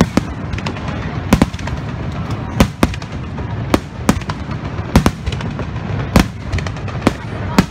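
Aerial firework shells bursting overhead in an irregular string of about ten sharp bangs, some close together in pairs, over a continuous low rumble.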